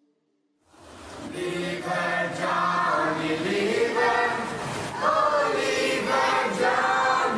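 Closing theme music: a group of voices singing together in chorus, fading in from silence about a second in.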